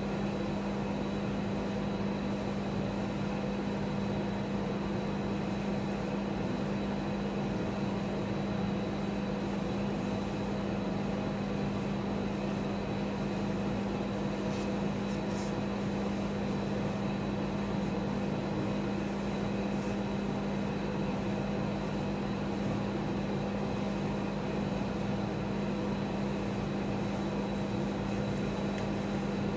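Steady electrical-mechanical hum of a rolled-ice-cream cold plate's refrigeration unit running, a constant low tone with fainter overtones above it.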